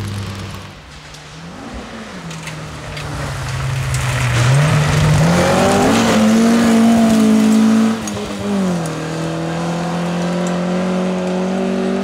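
Renault 8 Gordini rally car's rear-mounted four-cylinder engine at full throttle: the pitch climbs steeply about five seconds in, runs loudest for a few seconds, drops sharply about eight seconds in, then climbs steadily again.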